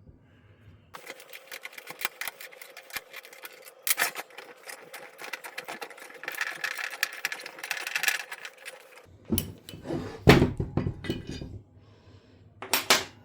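Cast iron bench vise being taken apart: about eight seconds of rapid metal clicking and scraping as the main body is worked free of its base, then several heavy metal clanks of the parts knocking and being set down.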